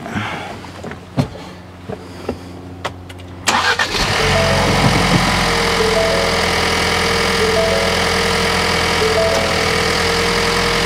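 Ford Bronco's 2.3-litre EcoBoost four-cylinder engine started after a few clicks and knocks. It catches almost at once about three and a half seconds in and then idles steadily. It is a normal start on the first test after the fuse box was replaced.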